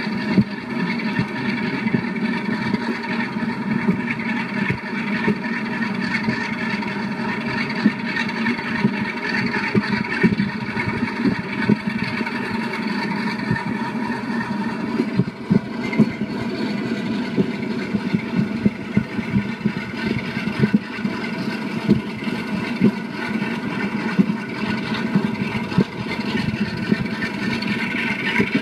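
Diesel locomotive engine of Class 45 'Peak' 45060, a Sulzer twin-bank twelve-cylinder, running under power with a steady drone, heard from a train window along with rushing air and track noise. The sound is played back through laptop speakers.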